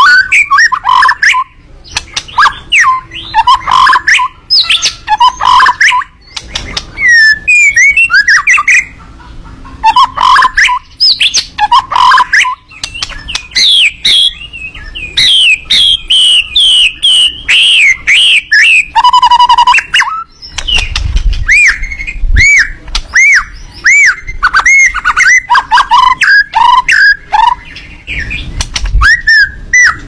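White-rumped shama (murai batu) in full, nonstop 'gacor' song: a fast, varied run of loud whistles, sweeps, chattering clicks and a buzzy trill. In the second half it repeats looping whistles over and over. Low rumbles come in twice in the second half.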